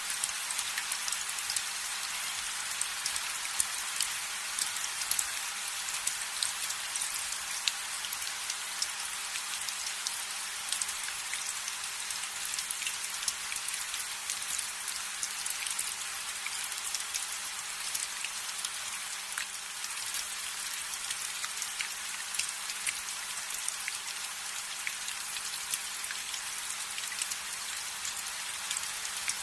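Steady rain falling on a window, a constant hiss with many small drops tapping.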